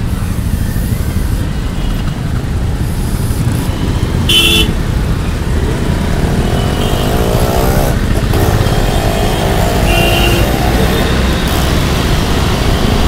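Congested road traffic heard from a motorcycle: a steady low rumble of engines and road noise, with a short horn toot about four seconds in and another near ten seconds.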